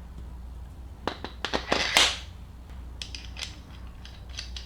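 Small metal parts being handled and fitted: a run of sharp clicks, a short scrape about two seconds in, then lighter ticks, as a bolt carrying a bushing is set into a drill chuck. A steady low hum runs underneath.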